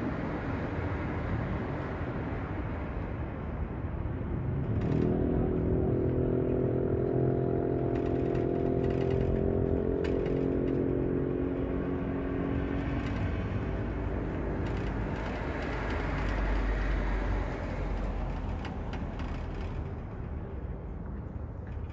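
Vehicle engine running steadily amid traffic noise, with a steady pitched engine drone for several seconds in the middle and a low rumble later.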